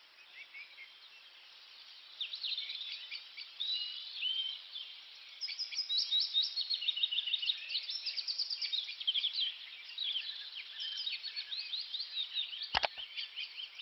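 Several songbirds chirping and singing at once, with quick runs of repeated notes, growing busier after about two seconds. A single sharp click sounds near the end.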